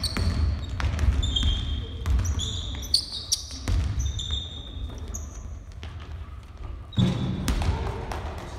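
Basketballs bouncing on a hardwood gym floor, with sneakers squeaking sharply against the boards as players move, the sounds echoing in the large hall. The squeaks come thickly in the first half, and a heavier thud comes about seven seconds in.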